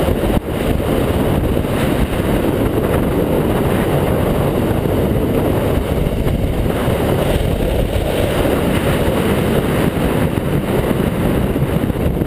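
ATV engine running steadily as the machine drives along, mixed with a dense rumble of wind on the microphone.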